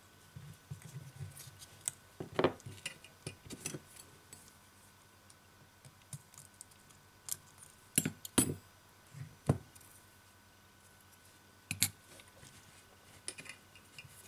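Small clicks, taps and knocks of a smartphone being taken apart by hand: the main circuit board lifted out of its metal display frame and the parts shifted and set down. The clicks come irregularly, with a few louder knocks among them.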